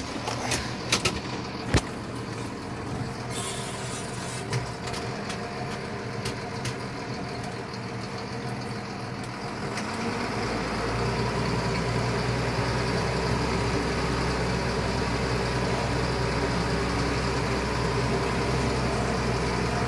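Deutz tractor's diesel engine running, heard from inside the cab, with a few sharp clicks near the start; about halfway through the engine speeds up and holds at a higher, louder drone as the tractor pulls away.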